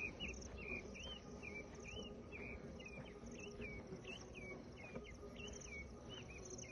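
Faint outdoor bush ambience: short chirping notes repeat steadily about twice a second, over a fainter, higher insect-like trill.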